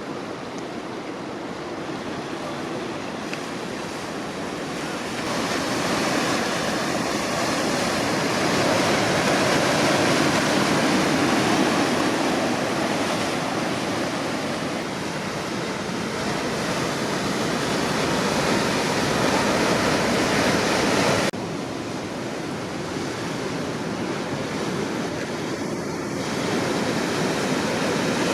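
Ocean surf: waves breaking and washing in a steady rush of noise that swells and eases. The level drops suddenly about 21 seconds in, then builds again near the end.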